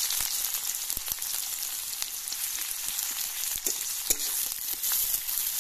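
Sliced onions sizzling steadily in hot oil in a metal kadai. In the second half a flat metal spatula stirs them, scraping and clinking against the pan, with one sharp clack about four seconds in.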